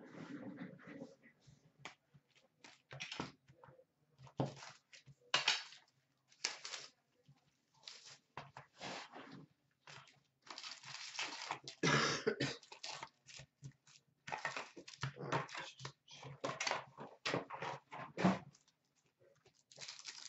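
Foil wrappers of Upper Deck Series 1 hockey card packs crinkling and tearing as the packs are handled and opened, in irregular short bursts of rustling.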